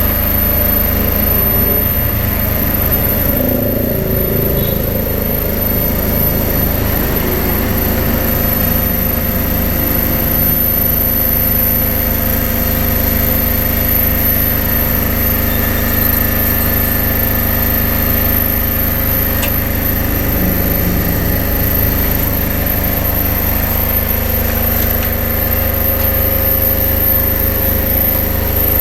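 An engine running at a steady idle, a constant low hum with no change in speed.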